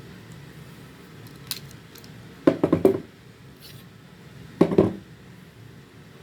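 Metal parts of a Ruger Mark IV .22 pistol clicking and clacking as it is handled during takedown and reassembly: a single click about a second and a half in, then two short clusters of clicks and knocks, the second near the end.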